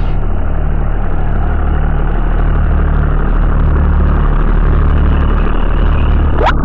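Fordson Dexta tractor engine running steadily, with a brief rising tone just before the end.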